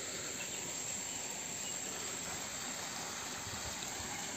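A steady, high-pitched drone of insects, unbroken over a soft, even background hiss.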